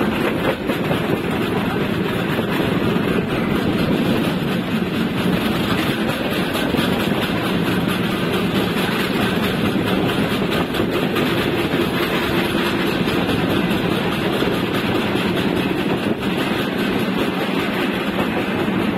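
Passenger train running at speed, heard from an open carriage door: a steady rumble and rush of wheels on the rails.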